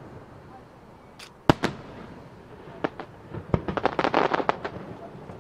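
Aerial firework shells bursting: a single loud bang about a second and a half in with a smaller one just after, then a few scattered cracks and a dense run of sharp pops around the four-second mark.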